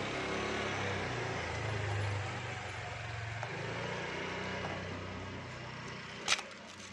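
A motor vehicle's engine running, swelling over the first two seconds and then slowly fading, with one sharp click about six seconds in.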